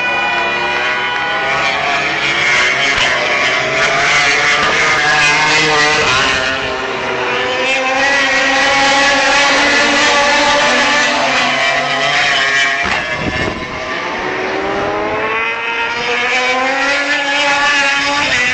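MotoGP racing motorcycles passing through a corner one after another, engines loud, their pitch falling as they brake and climbing again as they accelerate and shift up out of the bend.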